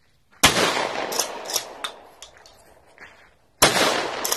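Two shots from a Remington 870 Express 12-gauge pump-action shotgun, about three seconds apart, each echoing away over a second or so. Short sharp clacks of the pump action being worked come between them.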